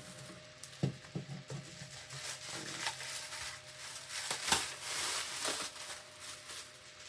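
Packaging being handled as a boxed fire-alarm unit is worked free: rustling of wrap and cardboard with scattered light knocks and clicks, the loudest knock about four and a half seconds in.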